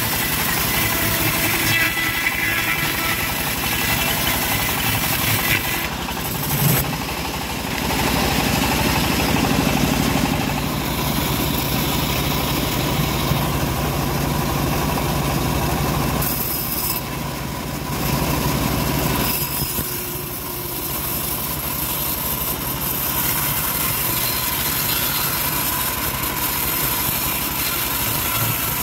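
Home-built band sawmill running steadily, its blade ripping a length of acacia log. The machine sound shifts in character twice and gives one brief louder bump about seven seconds in.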